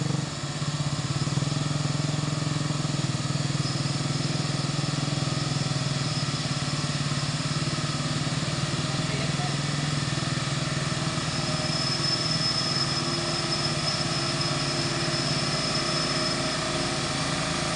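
Mitsubishi Fuso truck's diesel engine running steadily as the truck crawls slowly forward, a constant low hum.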